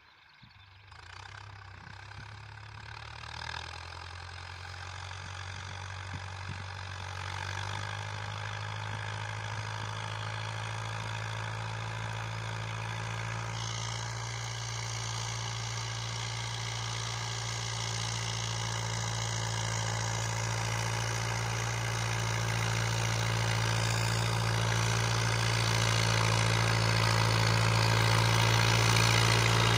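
Steyr 8073 tractor's diesel engine running steadily under load while pulling a plow through the soil, growing steadily louder as it comes closer.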